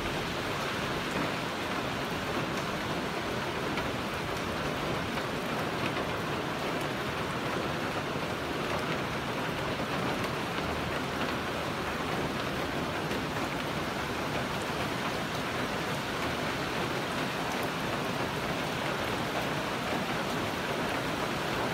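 Steady rain falling on the leaves of palms and garden trees: an even hiss of many drops that holds level throughout.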